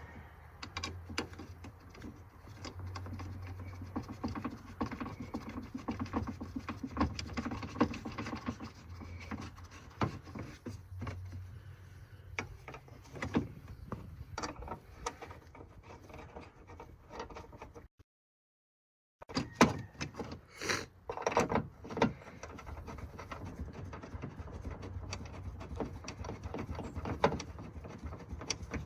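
Scattered metallic clicks, clinks and scrapes of hand work: bolts and the battery cross brace being fitted and tightened by hand on a pickup truck.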